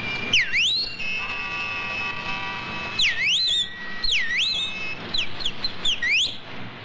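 A person whistling to call out: four loud swooping whistles, each dipping in pitch and rising again, with a few short falling notes before the last one.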